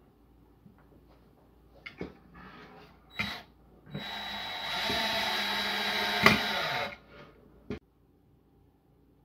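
Cordless drill running steadily for about three seconds, boring a pocket hole through a pocket-hole jig into pine, with a sharp click near the end. Scattered knocks come before and after it as the boards and jig are handled.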